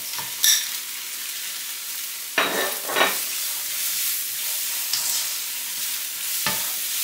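Chopped onions sizzling in oil in a wok while a silicone spatula stirs them. A few short knocks and scrapes against the pan stand out: one about half a second in, two around the middle and one near the end.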